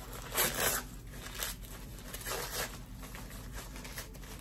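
Gift wrapping crinkling and rustling as a small wrapped gift is opened by hand, in about four short bursts.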